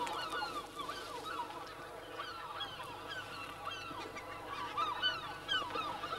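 A large colony of seabirds calling all at once: many short, overlapping honking calls, each sliding down in pitch, without a break.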